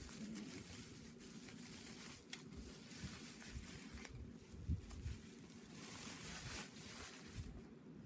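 Faint rustling and handling noise as a French press and its packaging are handled, with a couple of light knocks.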